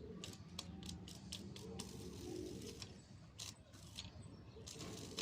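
Irregular small clicks and light metallic clatter from handling wires and hand tools, over a faint steady low hum.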